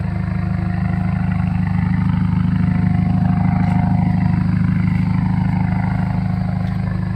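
Subaru WRX's turbocharged flat-four boxer engine idling steadily, heard at the rear near the exhaust as a deep, even rumble that grows a little louder midway through.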